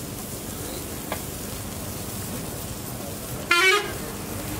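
A vehicle horn honks once, a short beep about three and a half seconds in, over a steady street background noise.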